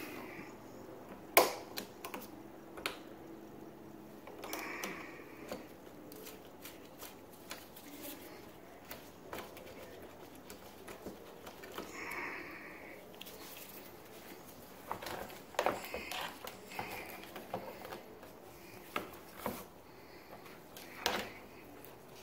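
Scattered small clicks and rattles of pliers and metal cable fittings being handled while a throttle cable is worked loose at a Yamaha Waverunner III 650's handlebar, with one sharp click about a second and a half in.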